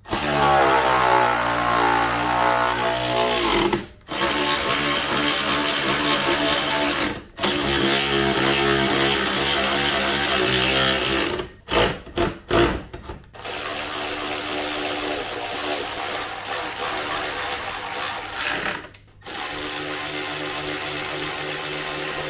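Cordless electric ratchet whining as it runs bolts in, in several long runs of a few seconds each, with a quick series of short blips about halfway through.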